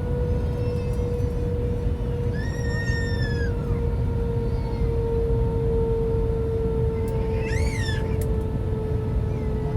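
Steady cabin noise of an Airbus A320 on approach: the rush of its IAE V2527 engines and airflow, with a steady whine. Twice, about two and a half and seven and a half seconds in, a high-pitched cry rises and falls over the noise, like a cat meowing in the cabin.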